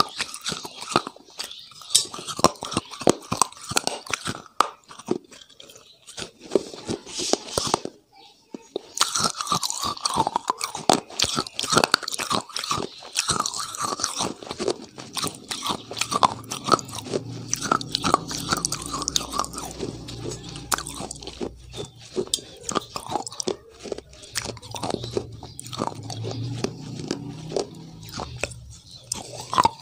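Close-miked eating: crunching and chewing of a crisp, crumbly white food. There is a short pause about eight seconds in, and a low steady hum comes in about halfway through.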